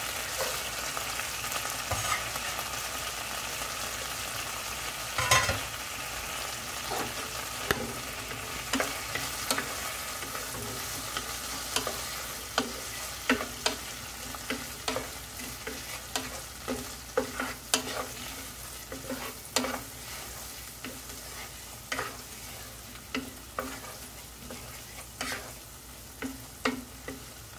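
Chopped red onion sizzling in melted butter in a frying pan, stirred with a wooden spatula that scrapes and taps against the pan. The sizzle slowly dies down, while the spatula strokes come more often in the second half, with one sharp knock about five seconds in.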